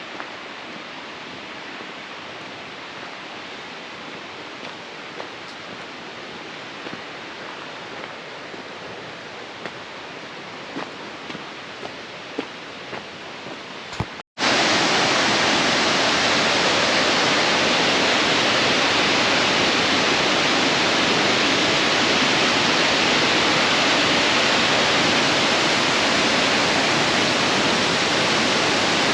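Rushing river water, steady, with a few small clicks, then after an abrupt cut about halfway through, the much louder steady rush of a waterfall.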